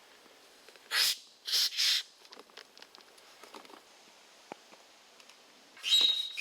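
Short hisses of air from an inflatable canoe's valve as its pressure is checked: three quick hisses about a second in, then near the end a louder hiss with a high whistling tone.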